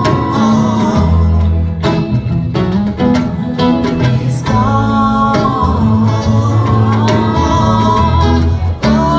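Live rock band playing an instrumental passage: electric lead guitar playing sustained, bending lines over bass and drums.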